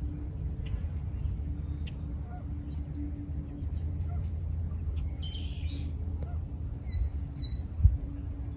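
Breeze blowing on the microphone. Near the end a bird gives two short, high calls, followed by a single low thump.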